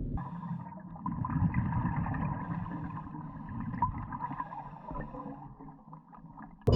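Underwater recording: bubbling and gurgling water with a low rumble and small scattered clicks.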